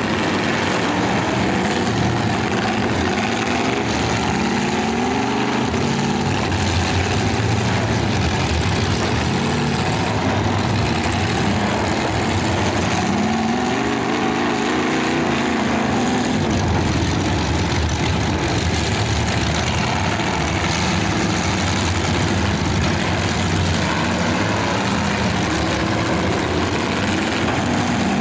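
Demolition derby cars' engines running and revving, the pitch rising and falling a few times.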